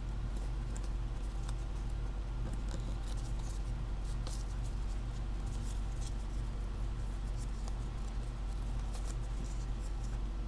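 Sheet of origami paper softly crinkling and rustling in a series of faint, scattered clicks as it is folded and creased, over a steady low electrical hum.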